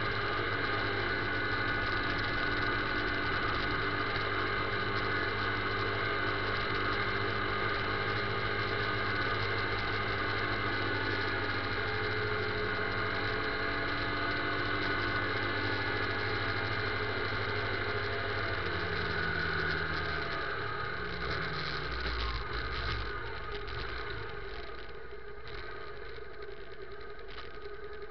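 Motorcycle engine running steadily while riding in town traffic, heard on the bike's own camera. About two-thirds of the way through, the engine note falls and the sound quietens as the bike slows to a stop and idles.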